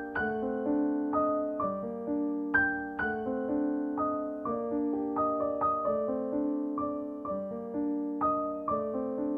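Background piano music: a slow, gentle melody of single notes over held chords, each note struck and fading away.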